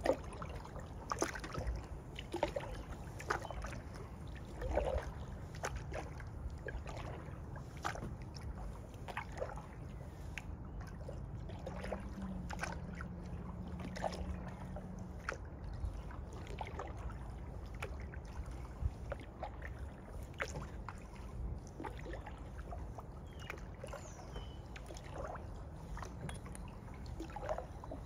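Kayak paddle strokes in calm water: dips, drips and small splashes at irregular intervals over a steady low rumble. A faint steady hum joins for a few seconds about halfway through.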